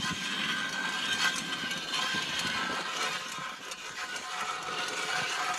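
Hand ice auger cutting a hole through lake ice: a steady grinding scrape as the blades are turned through the ice.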